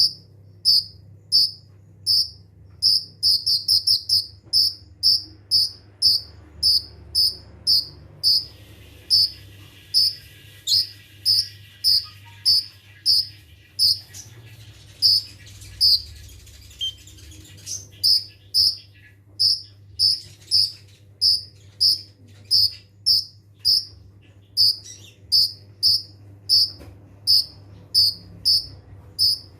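Kolibri ninja (konin) calling in steady repeated short, sharp high chirps, about two a second, with a quick rapid-fire run just before 4 s: the close-set 'nembak' shooting calls. A softer, lower warble sits under the chirps in the middle, over a faint steady hum.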